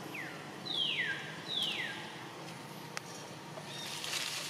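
Two high falling animal calls in quick succession, each about half a second long, over a steady outdoor background, with a faint click later on.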